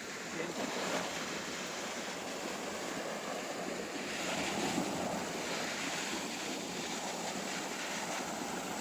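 Surf washing steadily on a sandy beach, with a little wind on the microphone; the wash swells slightly about halfway through.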